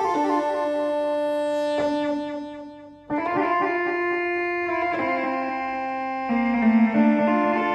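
KORG Micropreset monophonic analog synthesizer playing a slow melody of held notes. One note dies away about two and a half seconds in, and a new phrase starts sharply at about three seconds.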